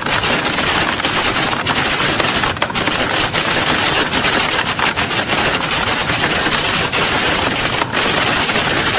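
Many people typing at once on keyboards, as in a hall full of typing-test candidates: a dense, continuous clatter of overlapping keystrokes.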